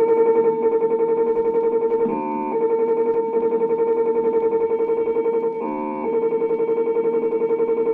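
LEO computer sound effect: a steady, rapidly pulsing electronic tone, broken twice, about three and a half seconds apart, by a brief burst of a different chord of tones.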